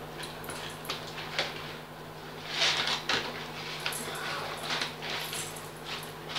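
Dry flattened rice (poha) poured from a packet into a stainless steel bowl, the flakes rustling and pattering against the steel in irregular bursts, loudest about two and a half seconds in.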